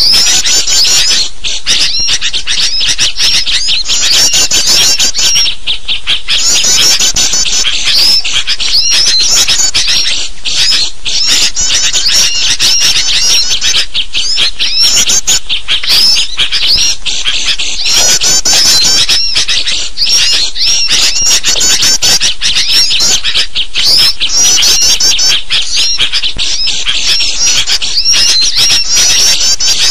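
Dense, unbroken chorus of high chattering and twittering bird calls: a layered lure recording of agitated sooty-headed bulbuls mixed with small songbirds, played to draw wild birds in.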